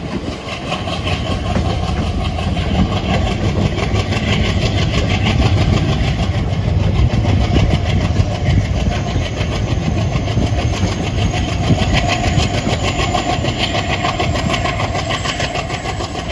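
Passenger train hauled by a diesel locomotive, heard from an open coach window: a steady rumble and rattle of the coach running on the rails, with the locomotive's engine working.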